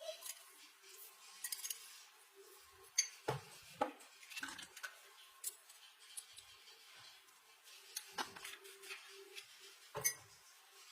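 Kitchenware being handled: scattered clinks and knocks, a few louder ones among many light ticks, over a faint steady hum.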